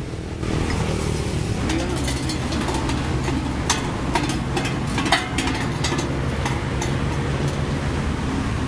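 An engine running steadily, with a few sharp metal clanks near the middle as the steel cage wheel is lifted and handled.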